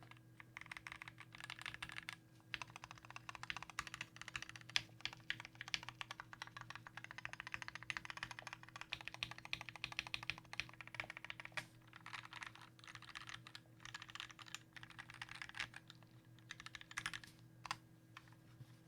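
Fast, continuous typing on a custom 60% mechanical keyboard with lubed and filmed Gateron Black linear switches, ABS keycaps and an aluminium case. The keystrokes come in long bursts broken by a few short pauses.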